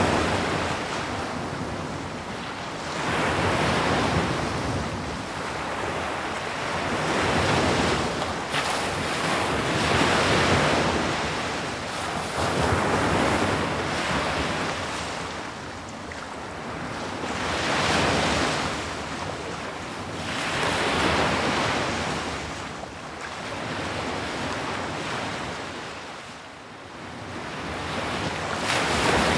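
Ocean waves breaking on a shore, the surf swelling and fading in slow surges about every three seconds.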